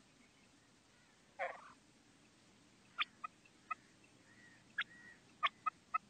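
Female common quail (batair) calling: one rasping note about a second and a half in, then a string of about seven short, sharp call notes, some in quick pairs, with faint softer notes between.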